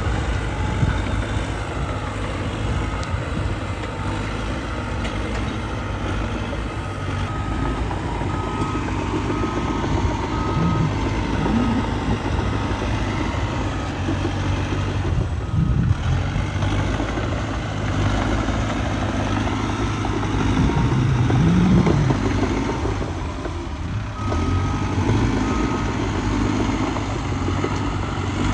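Diesel engine of heavy earthmoving machinery running under varying load, its revs swelling about ten seconds in and again a little past twenty. A backup alarm beeps in evenly spaced short beeps, in several runs with pauses between.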